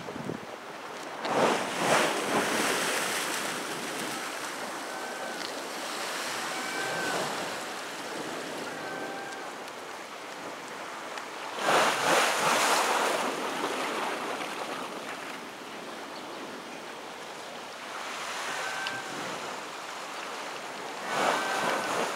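Outdoor ambience: a rushing noise that swells and fades four times, each swell lasting a second or two. Faint short chirps sound between the swells.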